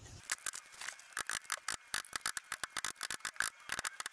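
Rapid hammer taps on an old screwdriver used as a drift, knocking a wheel-bearing race out of a front wheel hub: sharp metallic taps, about six a second, with the race coming out slowly.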